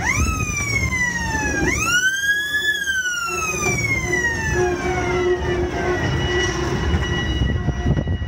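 A siren wailing twice: the pitch shoots up and sags, then climbs again about one and a half seconds in and slowly falls away over about three seconds, over the low rumble of the moving narrow-gauge electric railway car.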